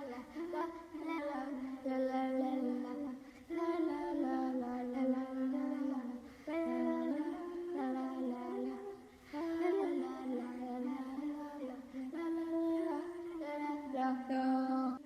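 A person humming a wordless tune in a fairly high voice, holding notes and stepping between pitches with short breaks for breath. It cuts off abruptly at the end.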